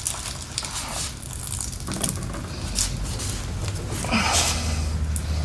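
Handling noises of a fuel line being worked by hand: scattered clicks and scrapes of metal fittings, with a short rush of noise about four seconds in, over a steady low hum.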